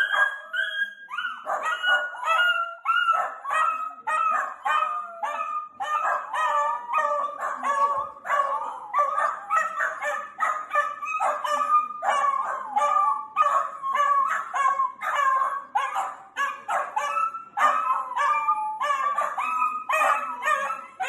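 Several miniature dachshunds barking rapidly and without pause, high-pitched yappy barks several a second, some overlapping: excited alert barking at someone coming up to the door outside.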